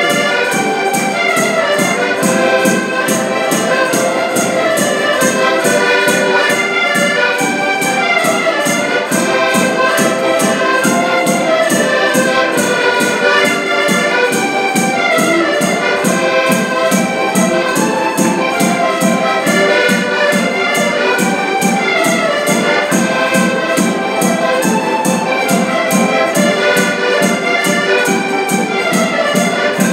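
Five button accordions playing a Portuguese folk tune together in full chords, with a drum keeping a steady beat under them.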